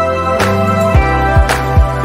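Background music with a steady beat: a deep kick drum and a sharp snare-like hit about once a second, over held chords.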